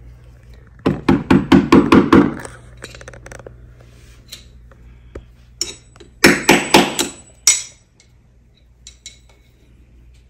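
Claw hammer tapping a small fastener into a hole in a concrete wall: a quick run of about six sharp metal strikes, a few light clicks, then a second run of about four strikes.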